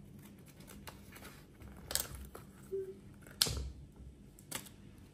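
Scissors snipping the plastic tag fasteners off a new pair of Crocs foam clogs, with the tags rustling: a few faint, separate clicks and rustles.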